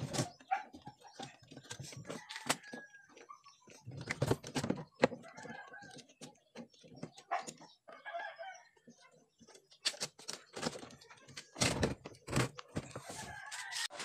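Chickens clucking and a rooster crowing, amid irregular clicks and knocks from hands working inside a washing machine's underside.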